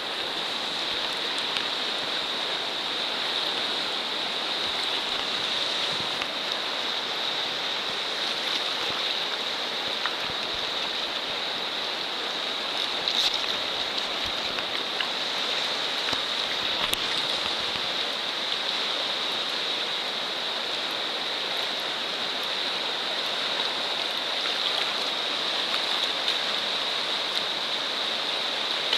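Fast-flowing river running steadily past the bank: an even, unbroken rush of water.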